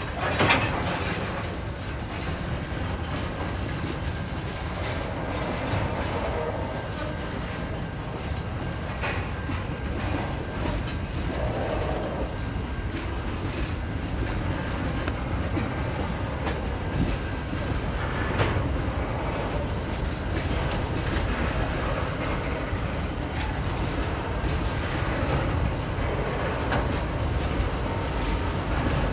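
Freight train's loaded container wagons rolling past: a steady rumble of steel wheels on rail with occasional knocks, the sharpest about half a second in.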